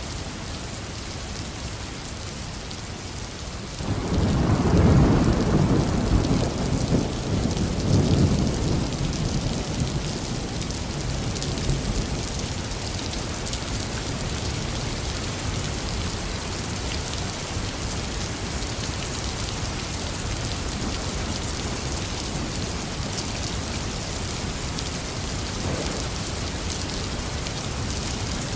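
Heavy rain falling steadily, with a clap of thunder about four seconds in that rumbles low for several seconds and dies away; a faint distant rumble follows near the end.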